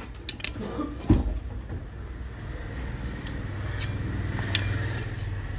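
Metal clicks and a sharp knock of a screwdriver levering against a disc-brake caliper to push its pistons back. The loudest knock comes about a second in, and a steady low hum of a running vehicle engine builds underneath from about halfway.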